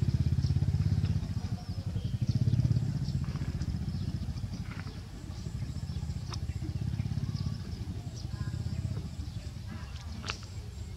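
A small engine running steadily with a low, rapid putter, louder in the first few seconds. A few sharp clicks sound over it.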